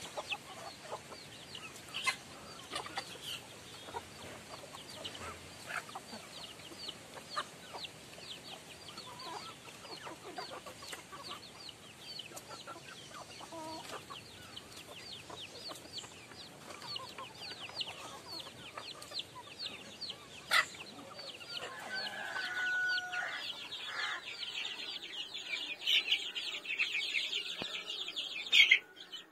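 A crowd of young chicks peeping constantly in short, high, falling notes, with now and then the clucks of older chickens and a few sharp knocks. The peeping grows louder over the last few seconds.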